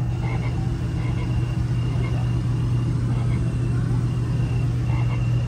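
A steady low hum runs throughout, with faint voices chattering in the background.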